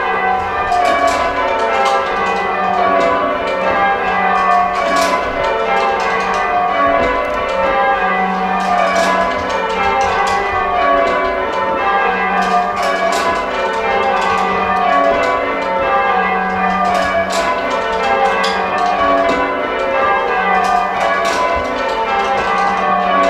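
Church tower bells being change-rung by rope, heard from the ringing chamber below: a continuous run of bell strikes, row after row, each row stepping down in pitch.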